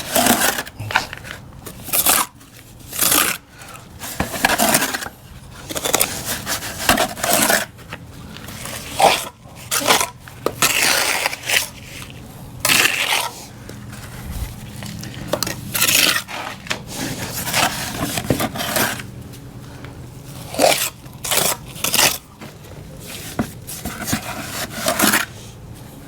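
Repeated, irregular scrapes of a hand tool working wet hydraulic cement, scooping it up and pressing it into a crack in a concrete foundation.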